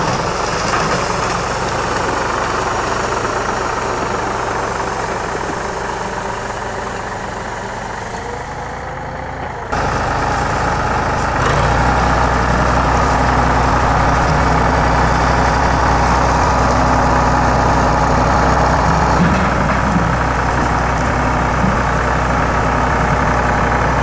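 Small farm tractor's engine running steadily. It becomes abruptly louder and deeper about ten seconds in.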